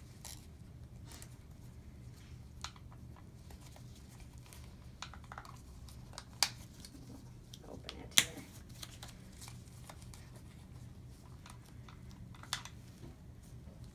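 Gloved hands handling a plastic StatLock catheter securement device: scattered small clicks and crinkles, with two sharper clicks in the middle, over a low steady hum.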